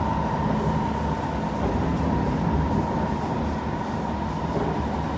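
Kawasaki C151 electric multiple unit heard from inside the car while running between stations: a steady low rumble of the running gear with a steady whine held at one pitch.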